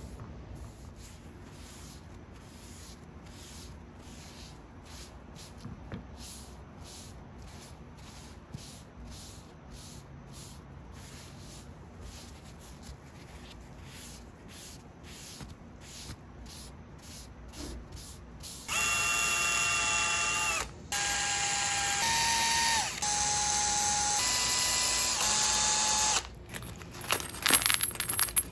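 Quiet, regular strokes of a rag wiping finish onto wood. Then a small electric drill runs in four short bursts of about two seconds each, a steady whine that shifts slightly in pitch from one burst to the next, most likely drilling pilot holes for the frame's hardware. Sharp clicks and rustling follow near the end.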